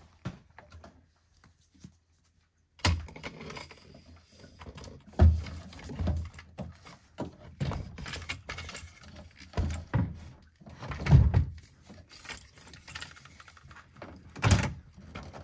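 A car battery and the plastic parts around its tray being handled under a truck's hood: a string of irregular thuds and clunks, the loudest about five and about eleven seconds in, after a near-silent first three seconds.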